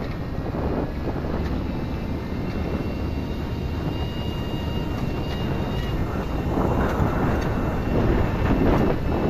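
A vehicle's engine running while moving, with wind rushing over the microphone. It gets louder and rougher for a couple of seconds near the end.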